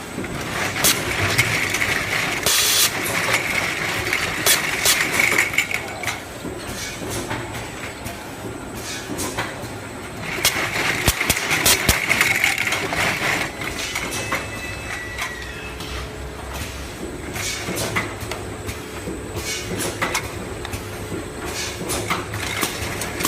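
Automatic sauce-bottle filling and capping line running, with irregular mechanical clatter and clicks. A higher hissing noise swells twice, for a few seconds each time.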